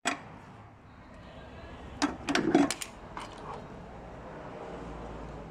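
A sharp click, then a quick cluster of loud clicks and knocks about two seconds in, over a low steady hum.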